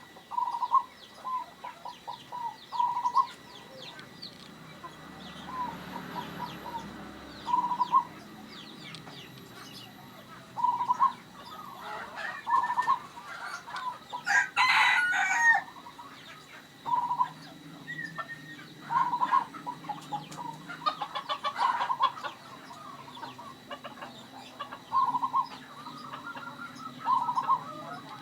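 Zebra dove (perkutut) cooing in short repeated bursts every second or two. Chickens cluck in the background, and a rooster crows once about halfway through, the loudest sound.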